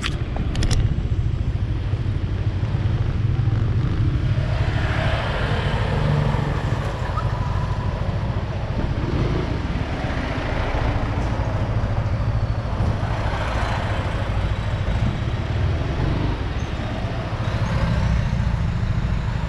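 Steady low rumble of riding a Yamaha Aerox scooter slowly along a street: wind and engine noise on the microphone, with passing traffic swelling several times.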